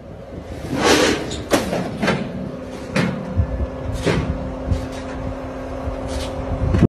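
A Mercedes-Benz S550 being loaded onto a car-carrier trailer: a run of loud knocks and bangs, about six in a few seconds, the loudest about a second in, over a steady hum.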